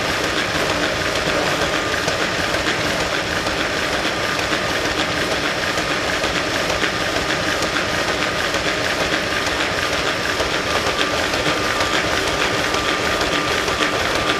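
Ice-skating treadmill running under a skater: a steady fast rattle from the moving surface with a thin, steady high whine.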